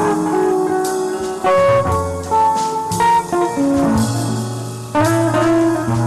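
Electric guitar playing a jazz ballad chord-melody: sustained chords over low bass notes with a single-note melody on top, no singing.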